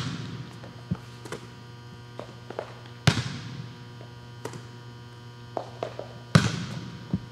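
A volleyball being struck in a large gym: three sharp smacks about three seconds apart, each echoing through the hall, with fainter taps between them. A steady mains hum runs underneath.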